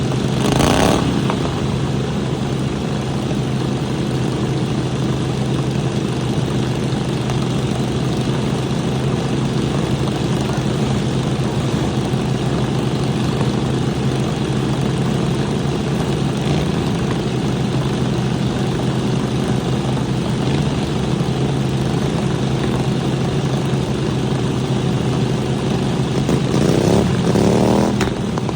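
Small lawnmower engines running steadily, with a sudden loud noise just under a second in and an engine revving up near the end.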